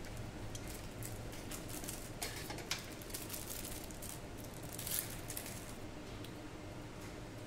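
Handling noises as a thin metal motherboard I/O shield is taken from its plastic packet and turned in the hands: scattered light rustles and small clicks, the sharpest about five seconds in.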